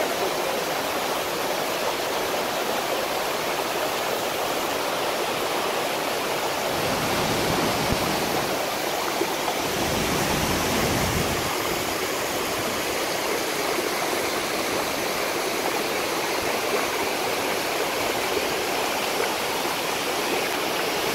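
Waterfall and rocky stream: a loud, steady rush of water falling and running over boulders.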